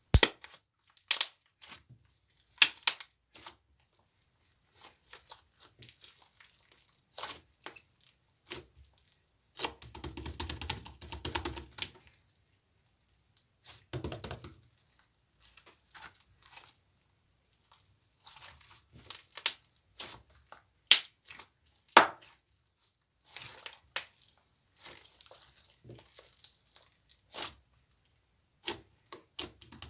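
Irregular sharp clicks and taps, with a couple of longer stretches of rustling or crinkling.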